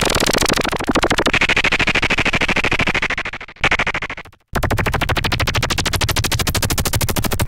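A homemade analog synthesizer prototype plays a fast pulsing electronic tone with a bright, shifting upper edge. It fades and cuts out about three to four seconds in, then comes back as a steady fast pulse with more bass.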